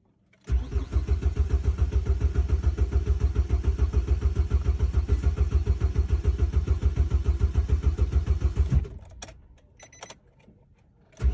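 Nissan Sentra's engine being cranked by the starter with an even, fast pulsing rhythm but not catching. It stops about nine seconds in, a few faint clicks follow, and cranking starts again at the very end. This is the hard-starting fault that the owner traced to a damaged, leaking fuel hose starving the engine of fuel.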